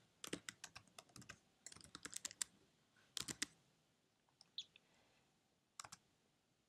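Faint computer-keyboard typing: scattered keystrokes in small quick clusters as a shell command is typed, thinning to single taps in the second half.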